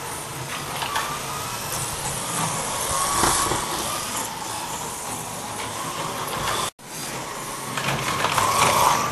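Two 1/32-scale slot-car race trucks running on the track: small electric motors whining, the pitch rising and falling as they speed up and brake, over the hiss of guide braids and tyres on the track surface. The sound breaks off for an instant about seven seconds in.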